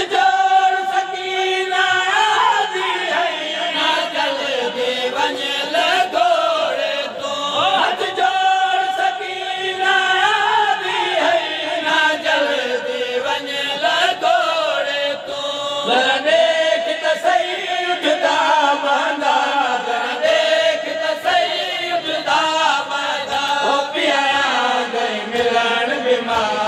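A noha, a Shia lament, chanted by voices singing together in a slow melody with long held notes.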